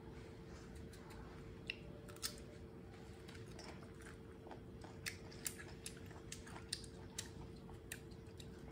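Faint crisp crunches and clicks of raw green mango slices being bitten and chewed by a baby monkey, coming irregularly and more often in the second half.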